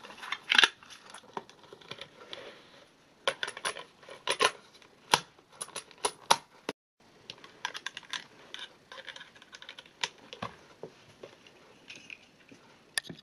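Clicks and rattles of hard plastic being handled: a cassette taken out of its clear plastic case and loaded into a Panasonic portable cassette recorder. The sharp clicks come in clusters.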